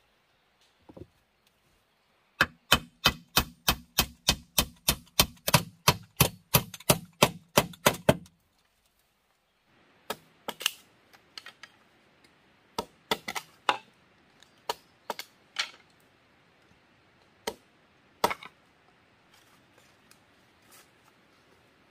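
Hammer blows on a wooden crossbar set against a bamboo-pole wall: a quick, even run of about four strikes a second for some six seconds, each with a low ringing. Then a dozen or so irregular sharp chops and cracks of a blade splitting a length of green bamboo.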